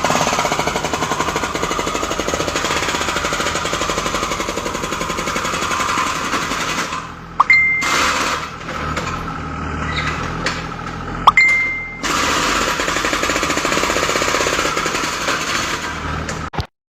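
Yanmar 3TN three-cylinder diesel engine making a rapid, rhythmic mechanical clatter in three stretches. There are short breaks with a sharp click about 7 and 11 seconds in, and it stops abruptly near the end.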